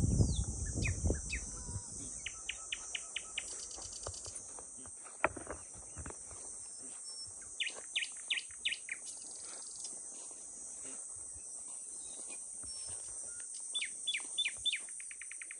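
Steady high-pitched insect drone, with three runs of quick, short falling bird chirps over it. A low rumble in the first second or so.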